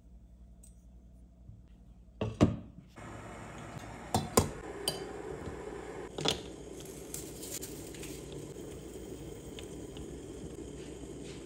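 Glass and metal kitchenware set down and knocked together. There is a loud knock about two seconds in, then several sharp glass clinks, over a steady hiss from a saucepan of water heating under a glass bowl.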